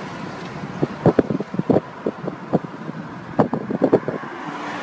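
Steady noise of a car on the road, broken by two clusters of short, sharp knocks and clatters, one about a second in and another past three seconds.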